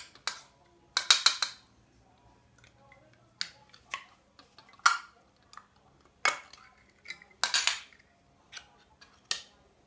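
Metal spoon clinking and scraping against an opened tin can and a ceramic bowl as canned fish in tomato sauce is scooped out. The clinks come irregularly, with a quick run of them about a second in and again around seven and a half seconds.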